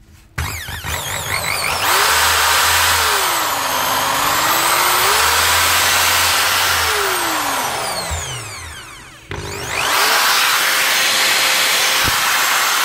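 Bosch GSB 21-2 RE corded impact drill's brushed motor running on its trigger, freshly fitted with a new field winding: it spins up, slows and speeds up again, winds down almost to a stop a little past halfway, then starts again and holds steady at full speed.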